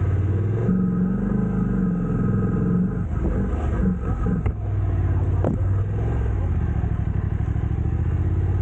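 A motor vehicle's engine running while under way, its pitch shifting up and down for a couple of seconds midway.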